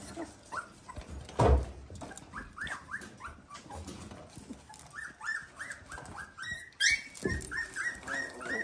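Young Dalmatian puppies, about three weeks old, whimpering and squeaking in a quick run of short high cries. There is a thump about a second and a half in.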